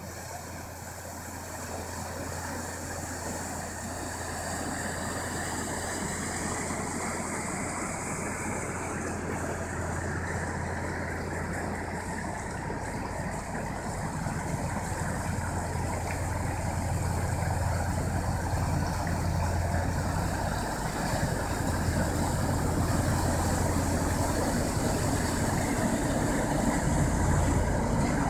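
Inland ship's engine running with a steady low hum, growing slowly louder over the stretch.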